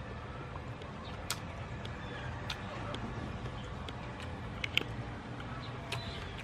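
A steady low outdoor background hum with a few scattered sharp clicks, the loudest a little under five seconds in.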